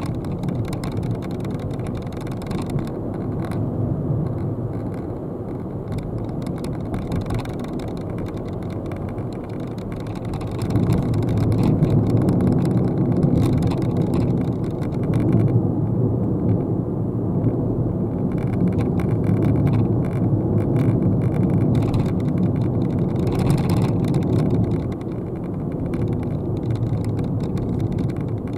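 Nissan Dayz turbo kei car heard from inside the cabin: the steady hum of its 660 cc three-cylinder turbo engine mixed with tyre and road noise. It grows louder about ten seconds in and eases off a little near the end.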